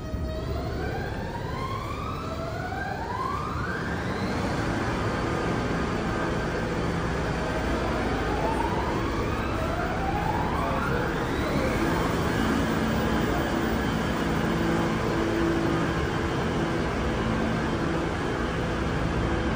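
New York City subway B train pulling out of a station and accelerating: its traction motors whine, rising in pitch twice (in the first few seconds and again about eight to twelve seconds in), over a rumble of wheels on rail that builds steadily.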